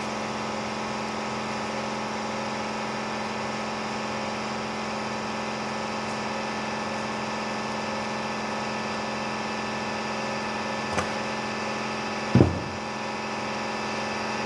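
Steady mechanical hum of a motor running in the workshop, with a fixed low drone and several tones above it. Near the end there is a short click, then a louder thump.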